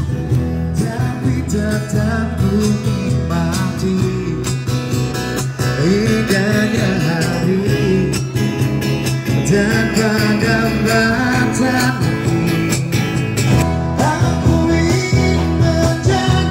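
A song with a voice singing over guitar and a steady bass line.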